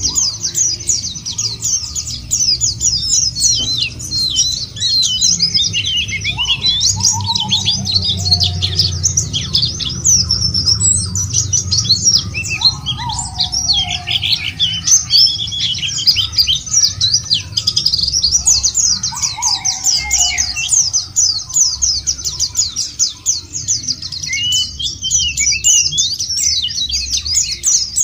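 White-eyes (pleci) singing in a fast, dense, continuous high twitter, the long rapid song rolls used to draw a caged pleci into song. A lower, falling whistled phrase comes three times, over a low steady rumble.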